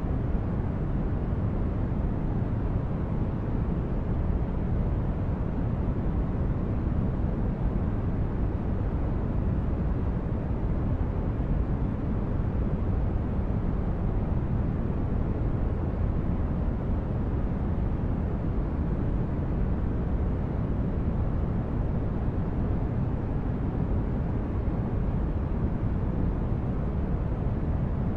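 Steady, unchanging low rumbling noise from a relaxation noise track, strongest in the bass and fading toward the highs, with no tones or events in it.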